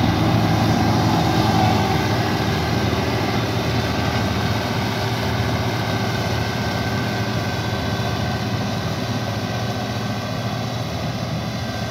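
Combine harvester's engine and threshing machinery running steadily, slowly fading.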